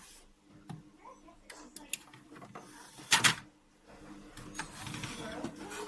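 Sharp clicks and clatter of hard objects being handled, with one loud short burst about three seconds in, then a steady rushing mechanical noise from about four seconds in.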